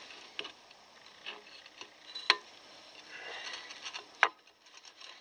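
Metal clicks and light scraping from rear drum brake parts (shoes, return spring and adjuster strut) being handled and fitted onto the backing plate. Two sharp clicks stand out, a little past two seconds in and near the end.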